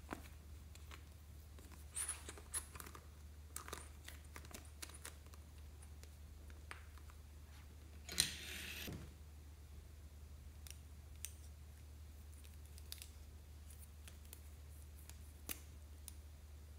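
Quiet handling sounds of plastic items over a glass bowl of slime: scattered small clicks and taps, with a brief rustle about eight seconds in, over a low steady hum.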